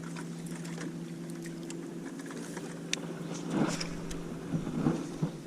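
Boat motor running at a steady hum, with a few sharp clicks and some irregular knocks around the middle and near the end.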